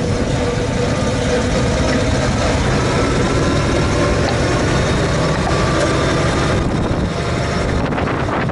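1933 Chevrolet truck's 194 cubic inch straight-six running steadily under way, heard from inside the cab.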